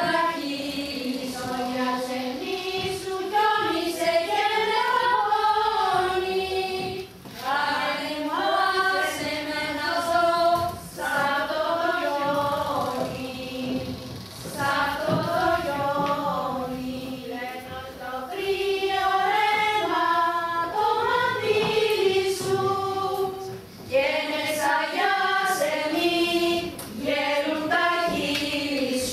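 Several women's voices singing a melody together as a choir, in phrases with short breaks between them.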